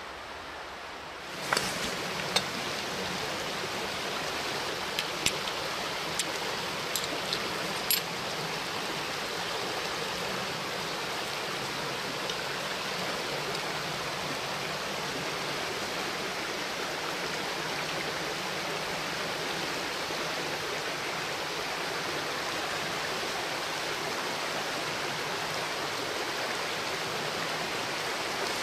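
Steady rush of a woodland creek, with about eight sharp, irregular clicks in the first eight seconds from a flint being struck on a steel striker to catch a spark in char cloth.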